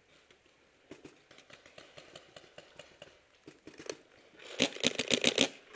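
Paintball markers firing: scattered pops from about a second in, then a rapid string of shots, about ten a second, near the end.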